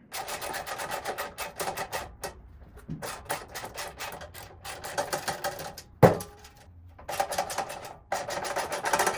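Hand ratchet wrench clicking in quick runs as bolts on the steel tool-cart frame are tightened, stopping and starting several times, with one sharp metal knock about six seconds in.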